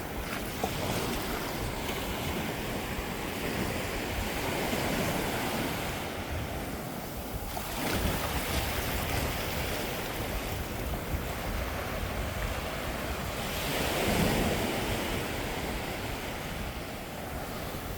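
Ocean surf washing onto a beach, swelling several times as waves break, with wind blowing across the microphone.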